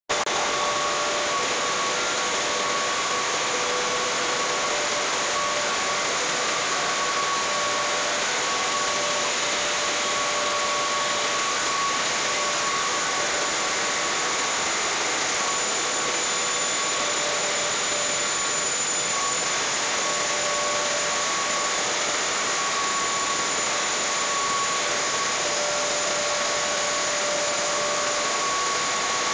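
Small maize flour milling plant running: a loud, steady rushing drone of machinery and moving air, with faint whining tones that come and go.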